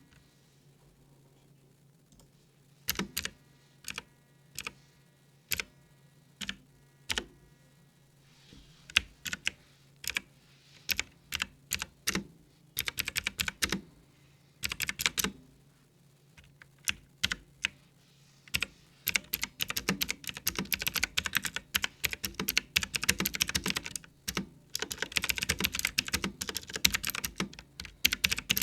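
Clicky mechanical keyboard switches (blue-style) on a budget typewriter-style keyboard: single keystrokes about a second apart at first, then short runs of quick presses, then fast continuous typing through the last third.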